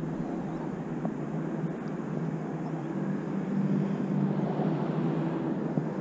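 Steady low drone of a distant engine, getting a little louder after the middle.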